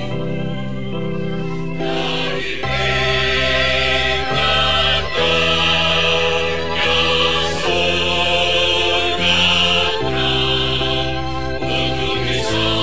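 Mixed church choir of men and women singing a hymn in parts over held low accompaniment notes. The voices swell in more strongly a couple of seconds in and carry on in long sustained phrases.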